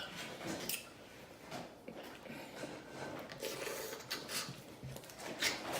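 Close-up mouth sounds of eating seafood: wet chewing and lip smacking with scattered sharp clicks.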